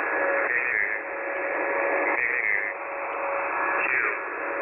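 Shortwave receiver tuned to 11175 kHz between transmissions, giving steady single-sideband static with two faint steady whistles and a few brief warbling chirps.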